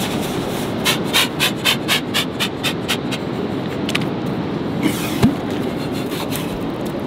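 A razor clam gun is worked down into wet beach sand with a fast run of rhythmic scraping strokes, about four or five a second, lasting a couple of seconds. A little after five seconds in there is a single short wet pop as the tube is pulled up with its core of sand. A steady rushing noise runs underneath throughout.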